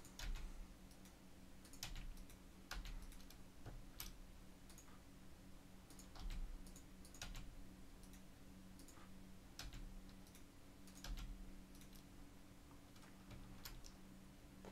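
Faint, irregular clicks of a computer keyboard and mouse, a dozen or so scattered through, over a faint steady low hum.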